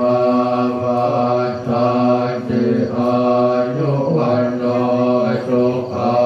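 Thai Buddhist monks chanting Pali verses together, melodic and drawn out, holding long notes over a steady low pitch, with brief dips for breath. The voices come over microphones.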